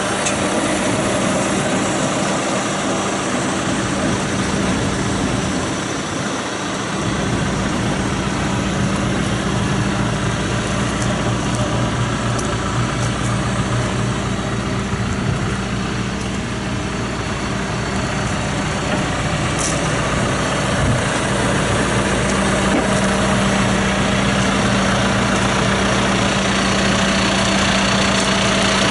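John Deere 310J backhoe's diesel engine running at a steady idle.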